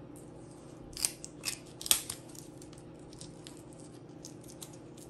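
Red-handled kitchen shears snipping through a raw chicken. There are three sharp, loud cuts between about one and two seconds in, then a run of lighter clicks of the blades.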